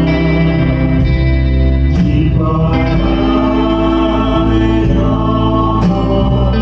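Church praise band playing a slow contemporary worship song, with guitar and sustained chords under singing; the chords change about every couple of seconds.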